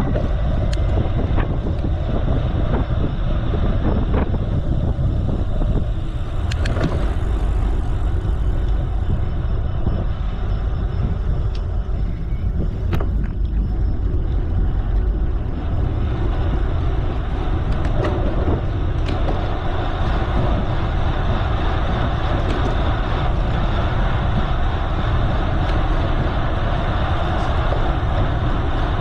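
Steady wind rumble on the microphone and tyre noise from a bicycle being ridden, with a few light clicks scattered through.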